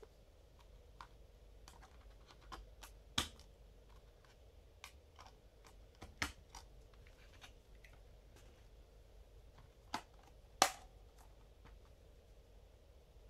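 Hands handling a metal SteelBook disc case: scattered light clicks, taps and scrapes as discs are pressed onto their plastic hubs. A few sharper clicks stand out, the loudest near the end as the case is snapped shut.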